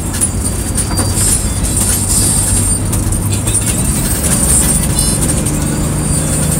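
Steady road and engine noise inside a moving car's cabin, a low even drone with no sudden events.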